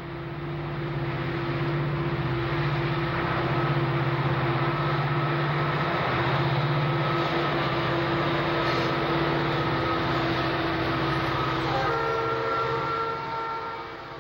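Diesel freight train passing: the locomotive's engine drone and the rumble of freight cars rolling on the rails, growing louder over the first couple of seconds and then holding steady. A chord of steady higher tones sounds over it from about twelve seconds in.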